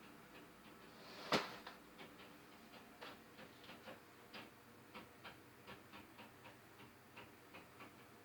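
Faint, uneven tapping coming through the ceiling from the condo upstairs, about three light taps a second, with one much louder sharp knock a little over a second in.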